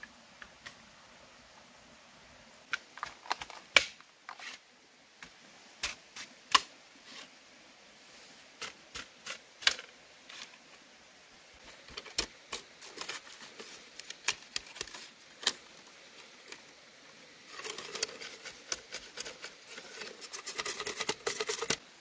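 Irregular sharp clicks and light knocks, some louder than others, then a few seconds of dense crackling near the end.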